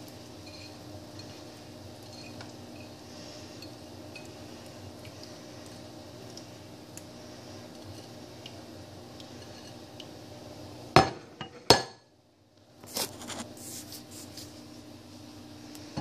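A steady low hum with faint ticks, then about 11 seconds in two sharp knocks, a brief drop-out, and light clinks of a glass bowl and metal utensils on a tiled kitchen counter.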